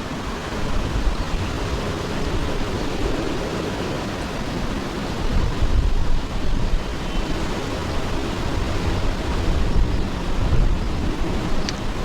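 Jet engine noise from an Airbus A380: a steady low rumble with a hiss over it.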